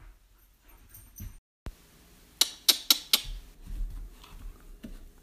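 A Rottweiler puppy playing, with four sharp, quick sounds in a row about halfway through, followed by low rumbling and softer knocks.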